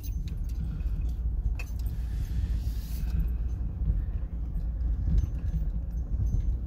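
Minivan rolling slowly over a rough dirt road, heard from inside the cabin: a steady low rumble of engine and tyres, with a few small clicks and rattles.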